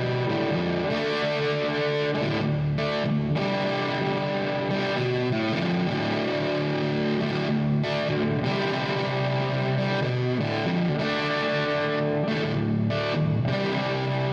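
Intro music: a rock instrumental led by distorted electric guitar.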